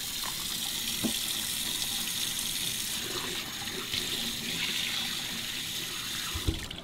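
Kitchen faucet running water into the sink, a steady hiss with a few light knocks, shut off at the very end.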